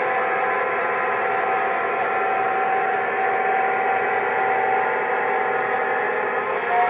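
Electronic diesel engine sound from a Lionel F3 locomotive's onboard sound system: a steady engine drone over the rumble of the model train rolling on the track. Right at the end a tone slides up as the horn begins.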